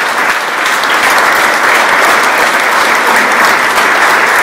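Audience applauding: many people clapping together, loud and steady throughout.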